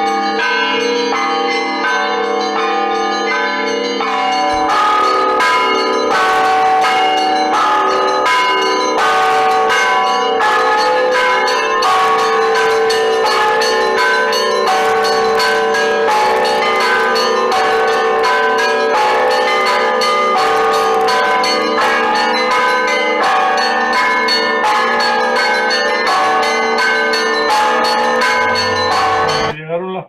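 Russian Orthodox bell ringing: a set of fixed bells rung by pulling ropes tied to their clappers. The smaller bells strike in a quick, dense rhythmic pattern over the ringing of the larger ones. The strikes grow busier about four seconds in, and the ringing cuts off just before the end.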